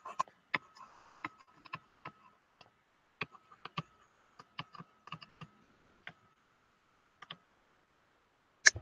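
Light, irregular clicks and taps of handwriting being put onto a computer whiteboard, about twenty over several seconds, with a sharper click near the end and a faint thin tone coming and going underneath.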